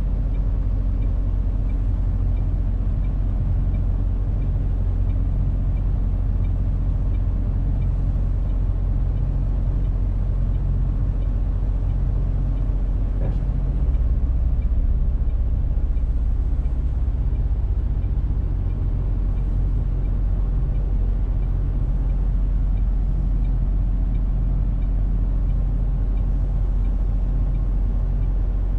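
A MAN TGX 470 truck's 12.4-litre straight-six diesel runs at low speed, heard from inside the cab as a steady low rumble. About halfway through it grows slightly louder for a few seconds as the truck pulls through the junction.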